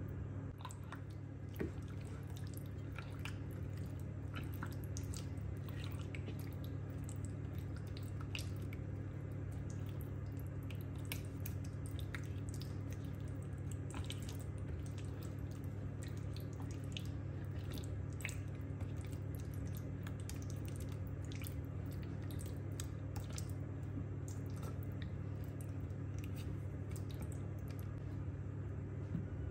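Wet squishing and irregular sticky clicks as raw chicken pieces are turned through a thick marinade with a spatula in a glass baking dish, over a steady low hum.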